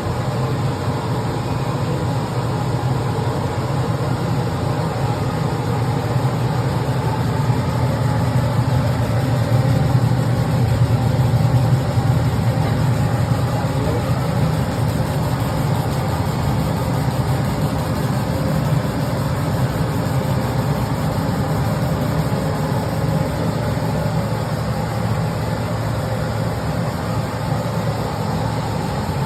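Large laser cutting and engraving machine running, a steady low hum and whir of its motors and fans.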